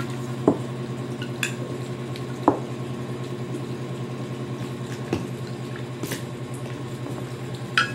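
A spoon clinking against a pot and bowls as sauce is ladled out, a few sharp clinks with the two loudest about half a second and two and a half seconds in, over a steady low hum.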